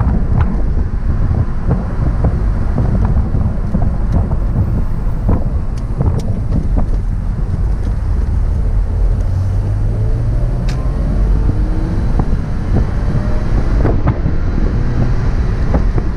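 Wind buffeting the microphone in an open-top 2001 Porsche Boxster on the move, over the steady low drone of its flat-six engine. A little past halfway through, the engine note rises as the car accelerates.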